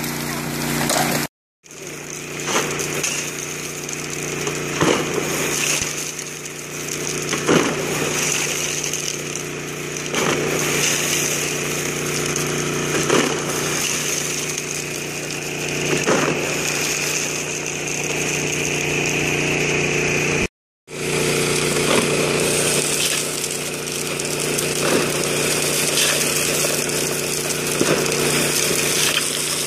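Shovelfuls of river gravel and cobbles thrown onto a power sluice's grizzly bars, clattering every couple of seconds, over the steady hum of the small engine-driven water pump that feeds the sluice. The sound drops out completely twice, briefly: about a second and a half in, and about two thirds of the way through.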